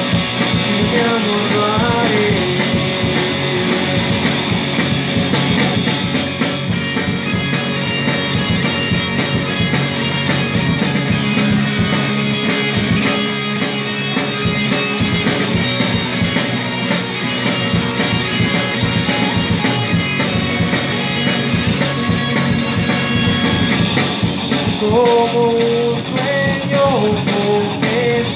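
Live rock band playing loud: electric guitars and a drum kit, with a wavering lead melody line about a second in and again near the end.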